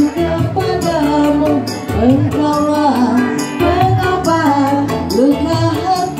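Music with a woman singing a gliding melody over bass and a steady percussion beat.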